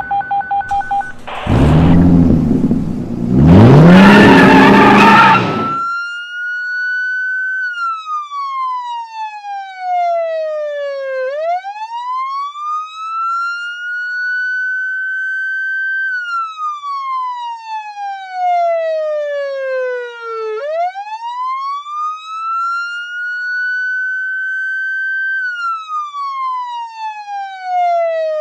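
Rapid electronic beeps for about a second, then a loud car engine revving for a few seconds. After that a police siren wails steadily, its pitch sliding slowly down and back up about every nine seconds.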